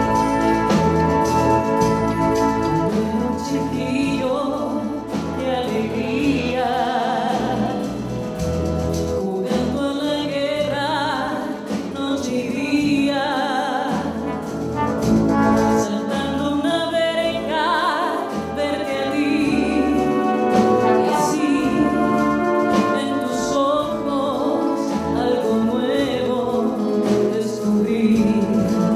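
Wind band of clarinets, saxophones, horns and brass playing sustained chords under a woman singing in Spanish into a microphone, her voice wavering with vibrato; the band alone at first, her voice coming in about four seconds in.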